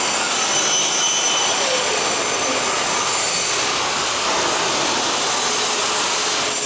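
SKX CNC 1200 aluminium drilling and milling machine running inside its enclosure: a steady machine hiss with several high, steady whining tones over it.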